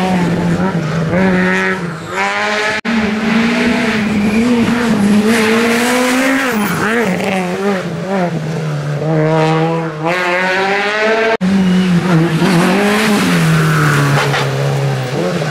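Peugeot 208 rally cars' engines revving hard as the cars accelerate away through a bend, the pitch climbing and dropping again and again with gear changes. The sound breaks off abruptly twice, about 3 and 11 seconds in, where the footage jumps to another car.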